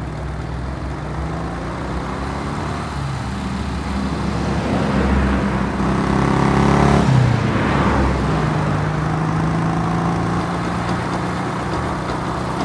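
Motorcycle engine running at cruising speed, its note rising and getting louder about halfway through, then falling back.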